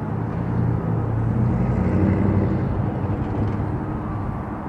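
Diesel locomotives of a loaded freight train running as they approach, a low steady engine drone that swells over the first second or so and then holds.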